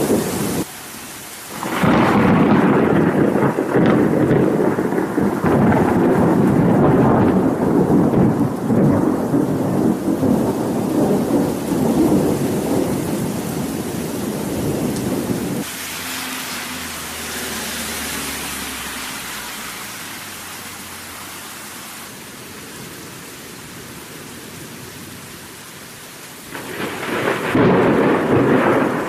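Thunderstorm: rain with long rolling thunder. A loud, low rumble fills the first half and stops suddenly, leaving quieter steady rain, and another roll of thunder builds near the end.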